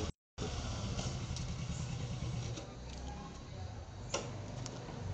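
Motorcycle engine running steadily at low revs as the bike rides up and stops. The sound cuts out for a moment just after the start, and there is a sharp click about four seconds in.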